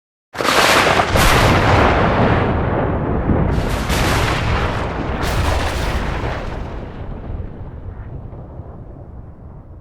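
A close thunderclap: a sudden sharp crack a moment in, then several more cracks over a deep rumble that slowly fades away.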